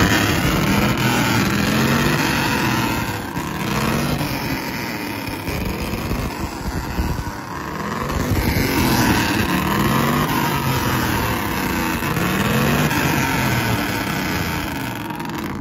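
Loud pickup truck engine revved again and again through a loud exhaust, each rev rising in pitch and dropping back every second or two over a steady rumble.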